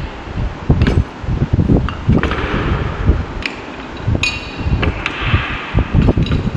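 Carpentry hand tools and a wooden workpiece being handled on a workbench: a few sharp knocks and metallic clinks over a continuous rubbing, rumbling handling noise.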